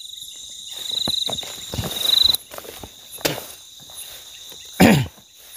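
Night insects trilling steadily at a high pitch, the trill swelling louder about a second in and again near two seconds, with footsteps and rustling in the undergrowth. Near the end comes one brief, louder low sound that drops in pitch.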